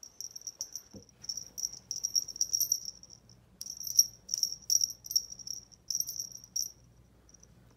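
Small cat-collar bell jingling in quick, irregular shakes as a cat bats at the dangled collar, with a short break about halfway.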